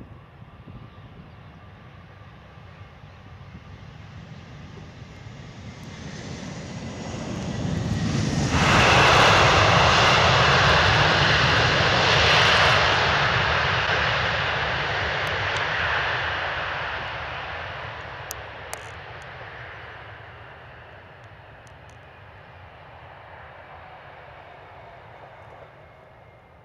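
Airbus A320-family airliner's twin jet engines on landing. The whine grows as it comes in on final, jumps suddenly to its loudest about eight and a half seconds in, and stays loud for several seconds as it touches down and rolls out. It then fades away down the runway.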